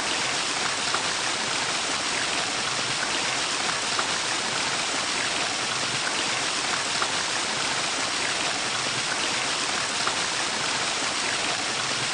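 A steady, even rushing hiss with a few faint ticks, cutting off abruptly at the end.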